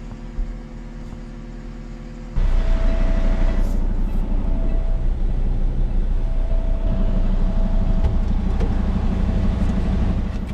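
Big-rig truck's diesel engine running steadily with a low hum, which gets suddenly louder about two seconds in.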